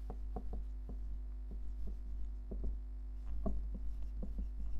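Writing by hand: a run of irregular taps and clicks as the writing tool strikes and scrapes the surface, over a steady low electrical hum.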